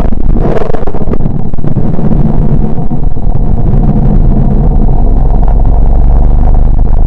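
A loud, steady rumbling drone, deep in pitch: a "planet sound from space" audio effect.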